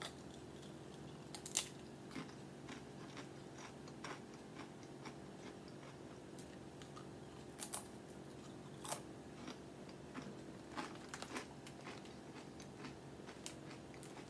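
Faint crunching of a wavy onion-flavoured potato chip being bitten and chewed: irregular crisp cracks, the sharpest about a second and a half in and a cluster between about eight and eleven seconds.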